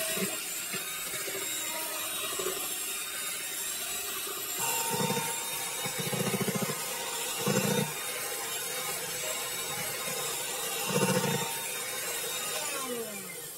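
Electric hand mixer (Miyako) running at low speed, its beaters churning thick banana cake batter in a plastic bowl, with a few short louder spells along the way. The motor winds down near the end.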